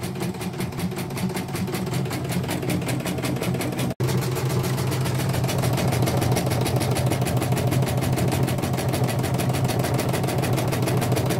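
CNY portable computerized embroidery machine stitching: a steady, rapid clatter of needle strokes over a motor hum. The sound drops out for an instant about four seconds in.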